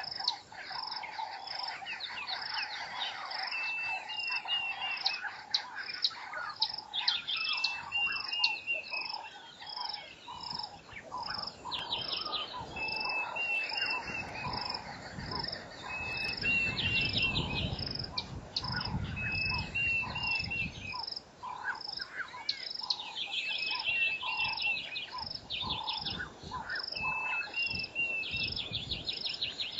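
Bushveld birds and insects calling: a short trilling bird phrase repeats every few seconds over a steady, evenly pulsing high chirp and lower repeated call notes. A low rumble comes in for several seconds midway.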